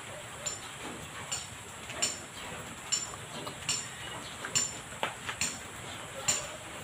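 Hand-operated metal bending machine worked by its lever, giving sharp metallic clicks a little more than once a second as the steel tube is bent in steps.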